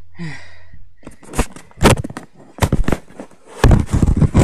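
A run of sharp knocks and bumps close to the microphone at uneven spacing, thickest near the end, typical of a phone being handled and knocked about while it records.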